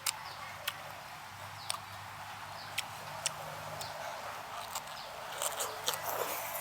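Close-miked chewing of raw prawn: scattered wet mouth clicks and smacks, about one a second with a quick cluster near the end, over a faint hiss.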